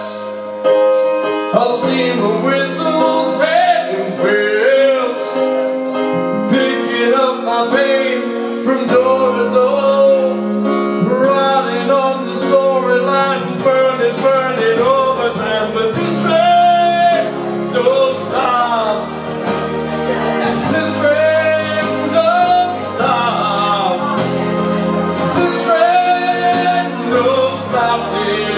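Music: a man singing into a microphone over an instrumental accompaniment with a steady beat.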